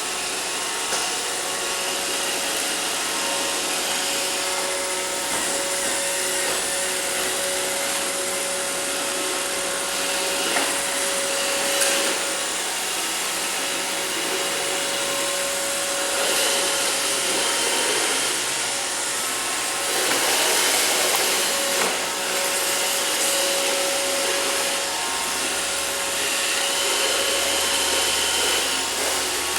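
An iRobot Roomba robot vacuum running: a steady whir of motor and brushes with a thin whine that fades in and out. There are a few short knocks, and the noise swells briefly now and then.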